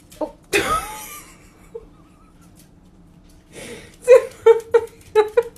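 A sudden loud noise with a falling cry about half a second in, then a person laughing in about five short bursts near the end.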